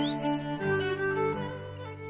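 Background music of bowed strings, sustained notes with light high chirping sounds, fading out near the end.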